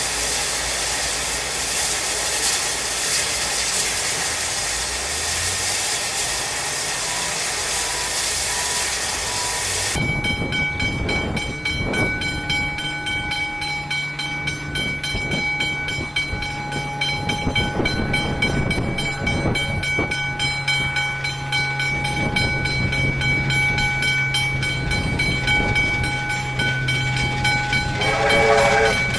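Steady hiss of steam from a standing Victorian Railways K class 2-8-0 steam locomotive. Then, after a cut, R class 4-6-4 steam locomotive R761 working a passenger train toward the listener, its exhaust and running noise growing, with a steam whistle sounding briefly near the end.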